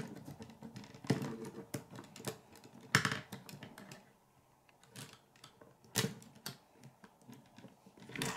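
K'nex plastic rods and connectors clicking and rattling as they are handled and snapped together. The clicks come at irregular intervals, with two louder snaps about three and six seconds in.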